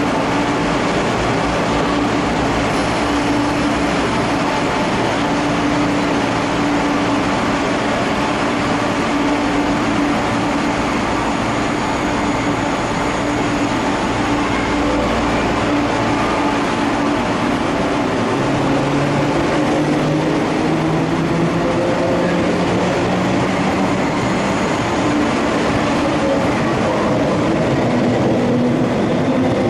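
MTR East Rail MLR electric multiple unit pulling out of the platform and gathering speed, with steady wheel and rolling noise. Partway through, its motor whine starts to rise slowly in pitch as the train accelerates.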